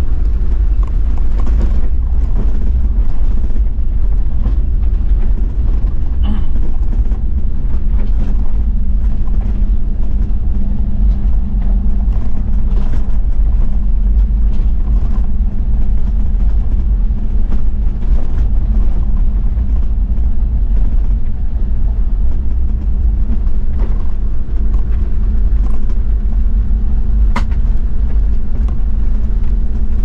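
Toyota Land Cruiser 70's 1HZ inline-six diesel running steadily as it drives along a dirt forest road, with scattered short clicks and knocks from the tyres and gravel.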